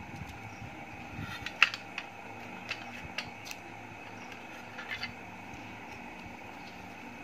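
Clear plastic audio cassette case being handled: a few sharp plastic clicks and taps, the loudest about one and a half seconds in, over a steady background hum.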